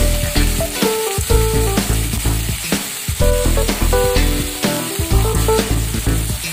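Yardlong beans and onion sizzling as they fry in a wok, turned now and then with a metal ladle, under background music.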